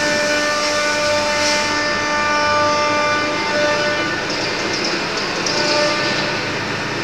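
CNC wood router running: a steady machine whine made of several held tones over cutting noise, the tones shifting about four seconds in as the machine changes its movement.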